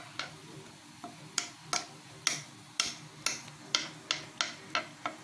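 Metal spoon clicking and scraping against a speckled nonstick pan while stirring fruit jam into honey syrup to melt it. About two to three sharp clicks a second, irregularly spaced.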